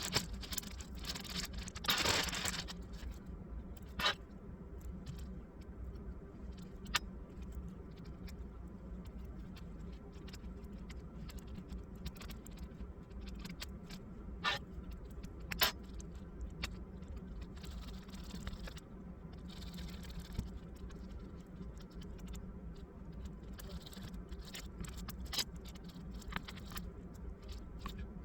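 Scattered light clicks and short rattles of small parts being handled during laptop disassembly, over a steady low hum.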